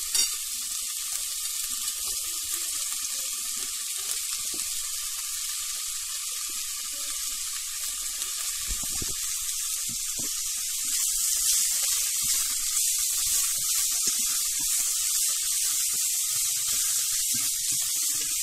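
Sliced mushrooms and onions sizzling in hot oil in a pot: a steady frying hiss that gets a little louder about halfway through.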